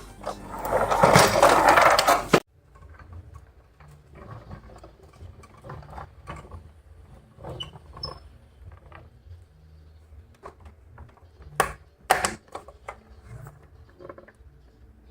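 Hands handling Tomica die-cast toy cars and their boxes: scattered small clicks, taps and rustles, with two sharper clicks near the end. It opens with about two seconds of loud, dense noise that cuts off abruptly.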